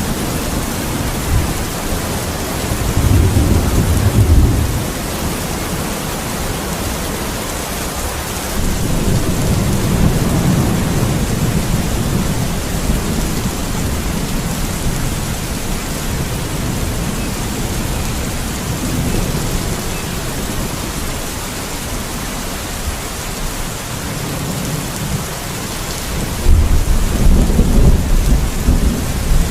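Steady heavy rain with rolling thunder: low rumbles swell up a few seconds in, again around ten seconds in, and louder near the end.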